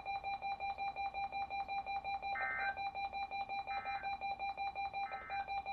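Weather alert radio's built-in alarm beeping: a steady, rapid train of high electronic beeps, several a second. Three times, about a second and a half apart, a shorter higher chirp sounds over it.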